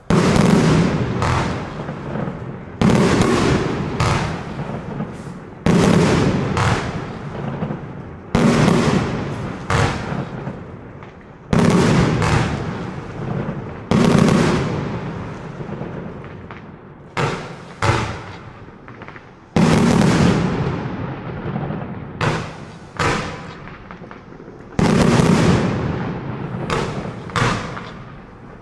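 Geisha Imperial Stars 132-shot compound firework cake firing a rapid, uneven string of shots, about one a second. Each is a sharp bang followed by a fading tail.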